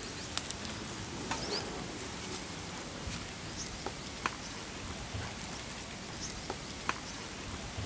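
Scissors snipping open small foil seasoning sachets: about seven sharp snips at irregular spacing over a steady hiss, with a few faint chirps.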